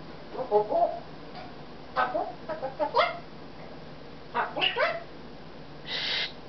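Congo African grey parrot vocalising in short bursts of chattering, mumbled mimicry: a cluster about half a second in, another between two and three seconds, a third near four and a half seconds, then a brief raspy noise near the end.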